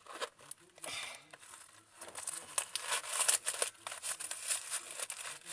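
Paper crinkling and rustling in irregular handling noises, busier in the second half: crumpled newspaper stuffing being handled inside a new wallet.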